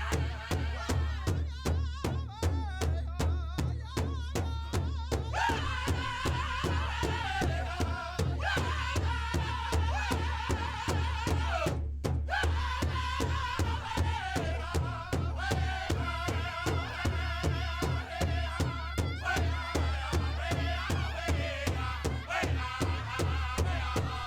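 Live contemporary Indigenous music: a quick, steady drumbeat under a voice singing long phrases that glide downward in pitch.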